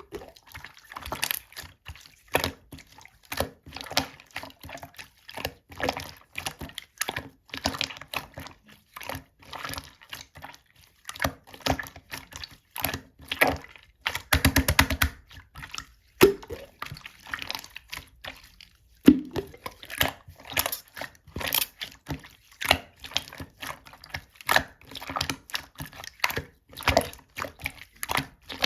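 Clear slime being squished and pressed by hand, making sticky clicks and wet pops several times a second, with a quick rapid run of clicks about fourteen seconds in.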